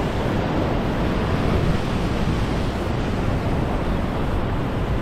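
Ocean surf breaking and washing over a rock ledge, a steady rush of water with wind buffeting the microphone.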